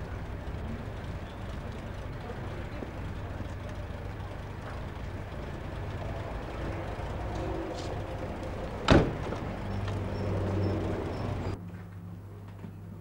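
Large saloon car's engine running at the kerb, a steady low rumble, with a car door shut with a single sharp slam about nine seconds in. Near the end the rumble gives way to quieter room tone.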